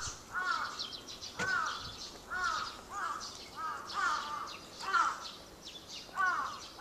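Crows cawing over and over outdoors at dawn, a short harsh caw every half second to second, sometimes in quick pairs.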